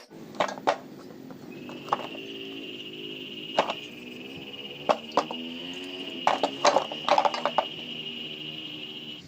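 Metal parts of a sewing machine clinking and knocking as they are handled, a dozen or so sharp knocks in irregular clusters, the busiest group near the end, over a steady high whine that comes in about a second and a half in.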